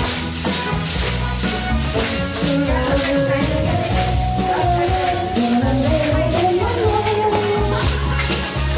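Music with a steady beat and a held, gliding melody line, and a maraca-like rattle on each beat.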